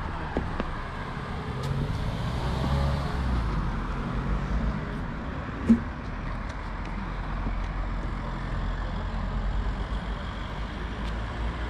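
Low steady road rumble of traffic and the ride's own motion, with a few faint clicks and one short sharp knock about six seconds in.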